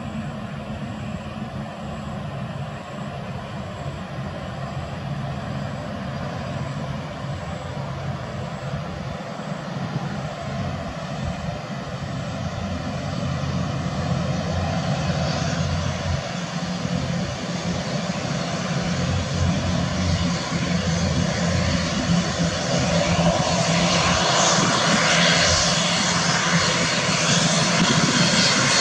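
ATR 72 turboprop airliner's twin engines and propellers running as it rolls along the runway, a steady hum with a higher whine, growing steadily louder as the aircraft comes close.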